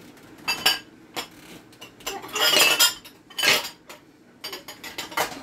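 Hard plastic parts of a vegetable chopper clattering and clicking as they are handled and searched through on the counter: a few sharp clicks, a longer rattle about two seconds in, another short rattle, then a run of quick clicks near the end.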